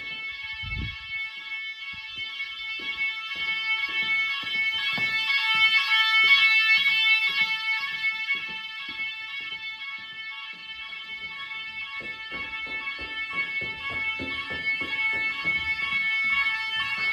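Nugelec fire alarm sounder going off continuously with a steady high-pitched electronic tone, swelling louder about six seconds in, easing off and rising again near the end. Faint irregular low thumps run underneath.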